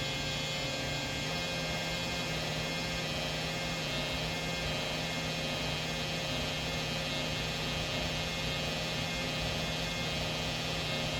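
Small electric drill running at a steady speed as it bores slowly into the rivet of a diecast Hot Wheels car, an even motor hum.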